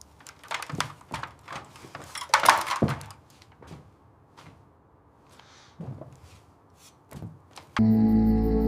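Irregular knocks and thuds of building-restoration work, with a dense burst of clatter about two and a half seconds in and a short scraping hiss in the middle. Background music comes back in near the end.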